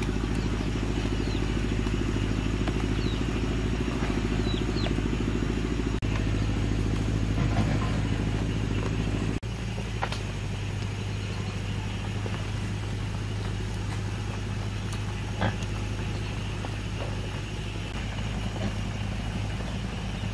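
A steady low mechanical hum, with a few faint clicks; its tone changes abruptly about nine seconds in.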